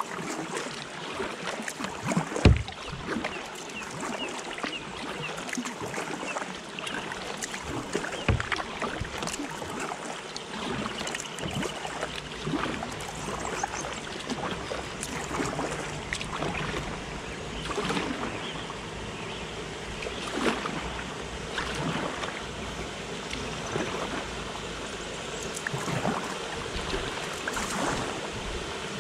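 Kayak paddle strokes splashing and dripping in calm river water, in gentle swells every two to three seconds, over the steady rush of water pouring over a weir. A single sharp knock comes about two and a half seconds in.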